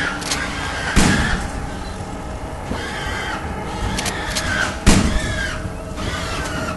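Layered horror sound-effects soundscape: two heavy bangs, about a second in and again about four seconds later, over a constant bed of short, arching high-pitched squeals and a low rumble.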